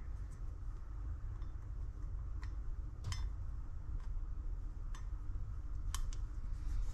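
A few light, sparse clicks and taps as a rubber piston seal is worked into the groove of a brake caliper bore by hand, over a low steady background hum.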